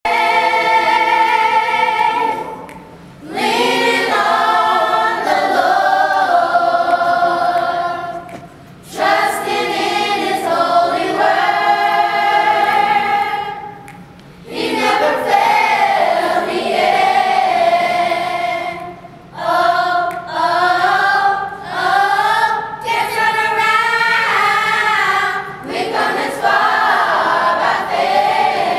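Children's choir singing a song in phrases of about five seconds, with short breaks between them.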